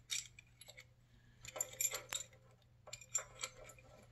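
Small metal parts of an Arctic Cat APV power valve assembly clinking and clicking against each other while being fitted into the valve port by hand. The clinks come in a few short clusters, about a second and a half in and again about three seconds in.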